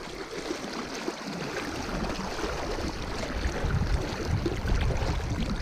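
Shallow river current rushing and splashing around a rainbow trout held in the water by a gloved hand. A low rumble builds from about two seconds in.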